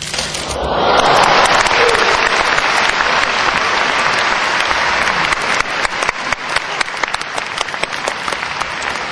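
Audience applauding. The applause swells to its loudest about a second in, then gradually thins into separate, distinct claps.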